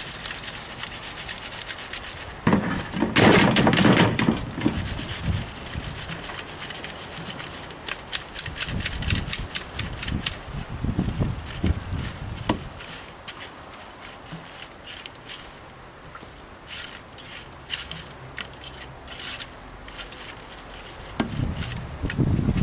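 Hand rubbing wet, gritty pond silt across a metal sieve screen: a run of crackling scrapes and small clicks. There is a louder burst of handling noise about three seconds in as the stacked sieves are moved.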